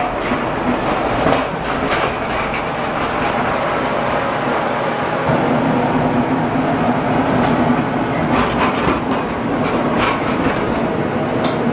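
Steady, loud whir of a space heater's fan and burner with a low hum, and a few knocks and rustles near the end as the camera is carried around the room.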